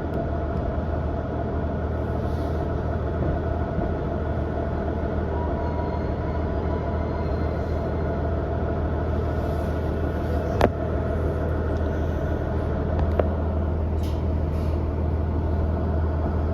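Running sound inside a KiHa 110 series diesel railcar: a steady low diesel drone under wheel and rail rumble. A sharp click comes about ten and a half seconds in, and a fainter one near thirteen seconds.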